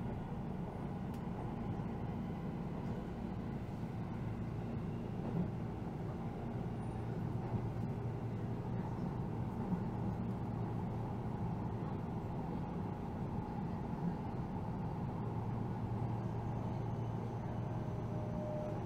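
Steady running noise of a Keihan electric train heard from inside the passenger car as it travels at speed. A faint high whine comes in near the end.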